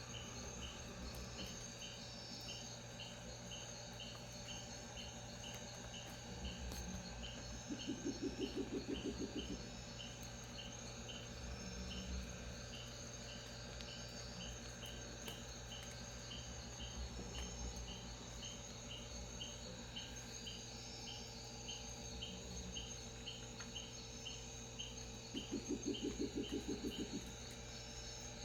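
Insects chirping steadily in an even rhythm of about one and a half chirps a second, with a strange low pulsing call of about a second and a half heard twice, about eight seconds in and near the end, louder than the insects.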